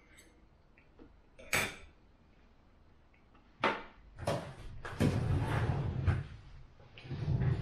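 Knife and fork clinking and scraping on a dinner plate in several separate strokes, with a longer scrape about five seconds in.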